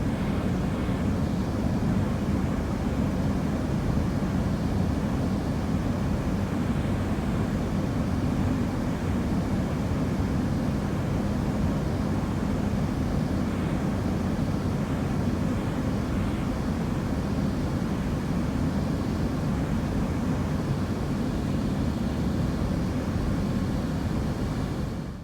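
Steady low drone of a car on the move: engine and road noise. It cuts off abruptly right at the end.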